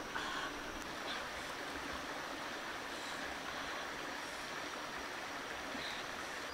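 Steady, even rushing noise of running water, as from a stream.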